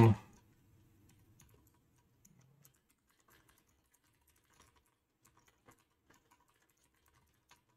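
Typing on a computer keyboard: faint, irregular keystrokes.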